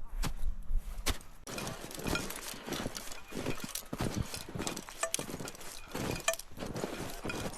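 A steady run of climbing footsteps, with light clinks of metal gear among the steps.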